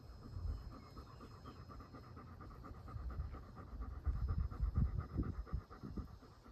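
German Shepherd panting in a rapid, even rhythm, with low rumbles that grow louder about four to five and a half seconds in.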